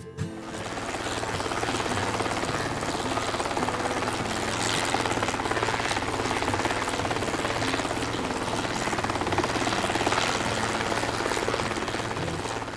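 Helicopter sound: a fast, steady rotor chop over engine noise, coming in suddenly as the guitar music breaks off and stopping shortly before the end.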